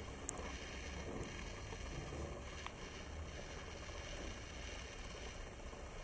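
Moulton bicycle rolling over a tiled floor: a low, steady rumble of tyres and frame, with one sharp click about a third of a second in.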